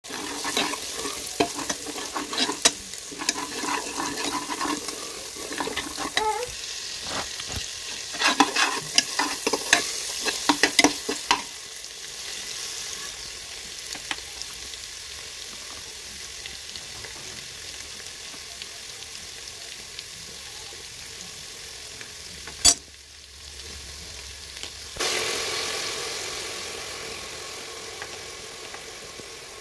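Onion and whole-spice masala frying in oil, sizzling, while a steel slotted spatula stirs it with quick scraping and tapping against the pan for roughly the first ten seconds. After that the sizzle goes on steadily, with one sharp click a little after twenty seconds. Near the end the sizzle turns louder and slowly dies down.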